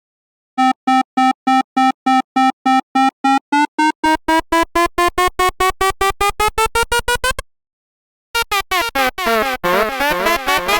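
Airplane alarm sound effect made of electronic beeps. Steady beeps come about three a second, then faster beeps climb in pitch. After a short break, rapid pulsing builds into a jumble of overlapping tones sweeping up and down.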